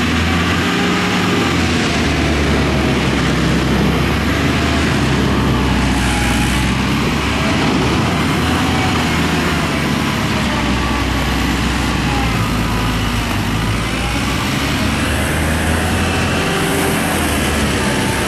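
A large engine running steadily with a continuous low rumble, like a truck idling.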